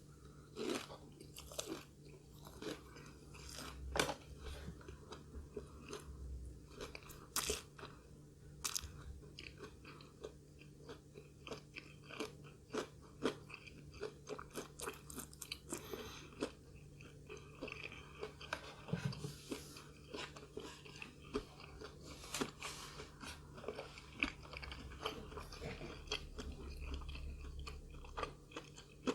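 Close-miked eating sounds: crunchy bites and chewing, with many irregular sharp crackles throughout.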